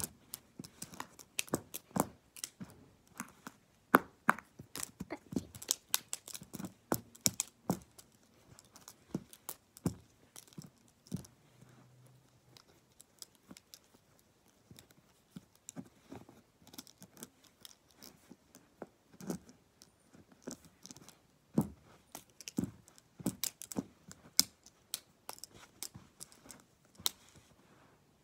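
Plastic gel pens tapping and clacking together in quick, irregular clicks during a pen-fight game. The clicks stop shortly before the end.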